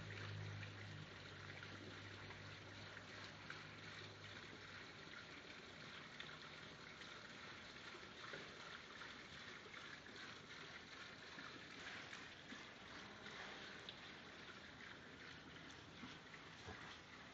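Near silence: a faint steady hiss, with a low hum that fades out about four seconds in.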